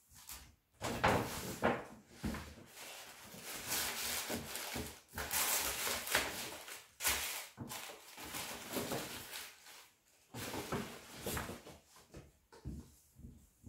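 Tissue paper and packaging being handled, rustling and crinkling in irregular bursts with short pauses.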